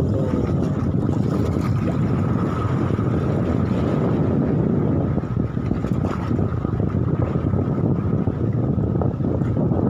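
Steady wind buffeting the microphone at sea, a dense low rumble, with a faint constant hum running underneath.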